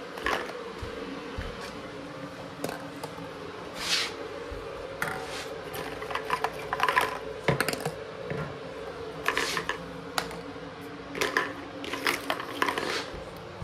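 Scattered light clicks, clatters and rustles of plastic Easter eggs being handled and set down on a hard kitchen floor, with footsteps, over a steady low hum.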